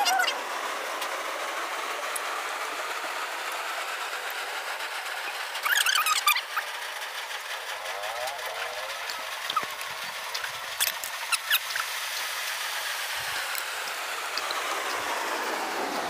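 Eating sounds: a few clicks and mouth noises as soursop pulp is eaten from a fork, in a cluster about six seconds in and again around eleven seconds in, over a steady background hiss.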